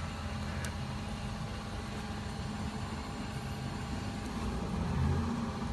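Steady low rumble of an idling engine, with a faint click under a second in.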